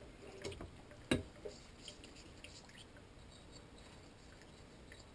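Quiet kitchen handling sounds: one sharp clack about a second in, then faint soft scrapes and ticks as a wet molasses-and-sugar mix is worked in a bowl at the sink.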